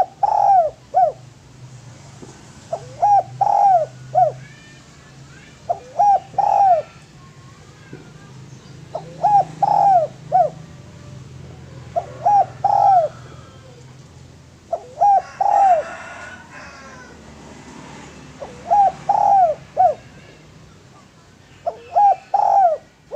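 Spotted dove (derkuku, tekukur) cooing: phrases of three or four coos, repeated about every three seconds. Small birds chirp faintly behind.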